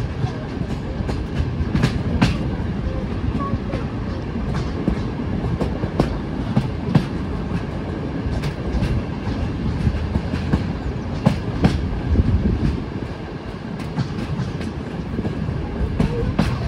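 Passenger train rolling along the track: a steady low rumble with irregular sharp clicks as the wheels pass over rail joints.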